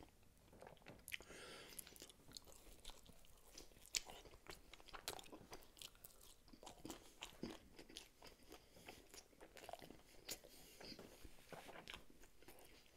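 Faint, close-miked chewing of pizza and wings, with many short crunchy clicks and wet mouth sounds scattered through.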